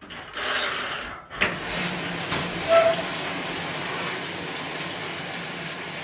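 Top-loading washing machine filling with water: a steady rushing hiss with a few knocks and clicks, and a short high tone about three seconds in.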